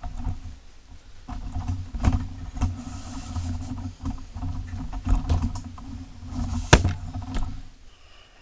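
Camera tripod being handled as its legs are put down and set, with scattered clicks and knocks over low rumbling handling noise on the microphone; the sharpest click comes near the end.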